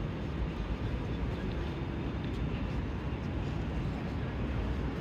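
Steady low rumble of street traffic, buses and trams, with no single event standing out.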